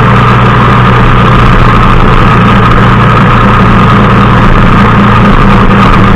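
Motorcycle engine running loudly and steadily at an even speed, with no change in revs.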